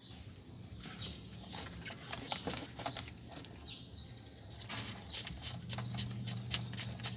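Clicks and knocks of a plastic fuel filter housing being handled and worked by hand. The clicks come thick and fast in the second half, with a few bird chirps early on and a low steady hum that comes in near the end.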